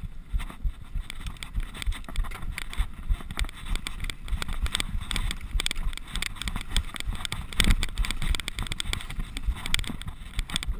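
Mountain bike descending rough dirt singletrack at speed: tyres over dirt and roots, with the bike's chain and frame rattling in a dense, irregular clatter over a low wind rumble on the microphone.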